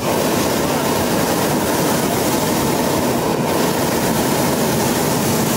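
Hot-air balloon's propane burners firing in one long blast, a loud, steady roar that comes on suddenly at the start, heating the envelope as the balloon lifts off.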